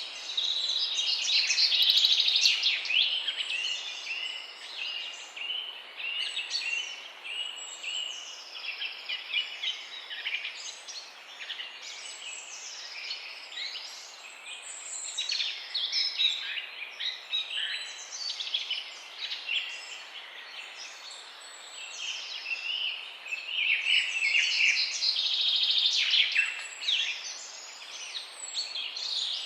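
Chorus of many songbirds singing and chirping at once, with overlapping trills and whistles, busiest about two seconds in and again near the end.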